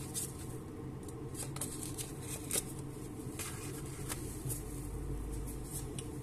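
Scattered light clicks and rustling as piston-ring parts and the piston are handled on a paper-covered bench, over a steady low hum.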